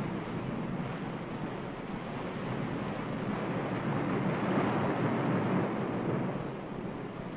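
A steady rushing noise, like surf or wind, that swells to its loudest about five seconds in and then eases off.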